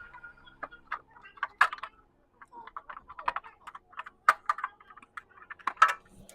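A run of irregular sharp clicks and taps, a few of them louder, with no steady rhythm.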